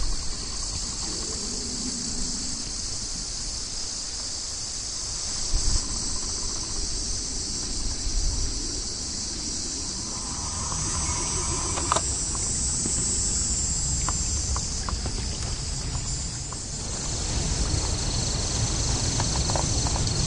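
A steady, high-pitched chorus of insects, over a low rumble, with a few light knocks in the second half.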